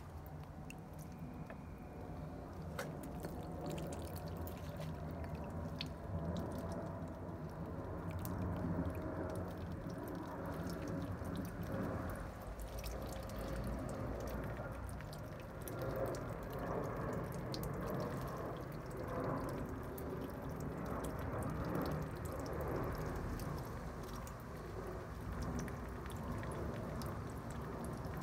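Water poured from a glass into a terracotta pot of compost, while water drains out of the pots' drainage holes and trickles and drips onto wooden slats. Scattered small drips run throughout.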